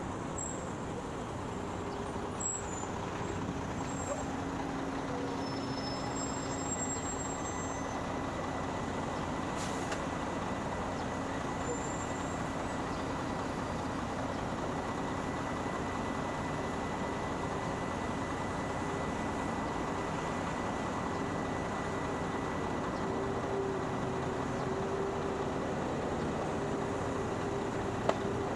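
Steady road-vehicle noise: a continuous rumble of engine and tyres with a faint engine hum that rises slightly near the end.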